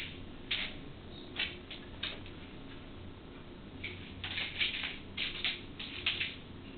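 A kitten's paws and claws scrabbling and batting at a vinyl floor and the base of a door: a few short scratchy taps, then a quick flurry of them about four to six seconds in, over a faint steady hum.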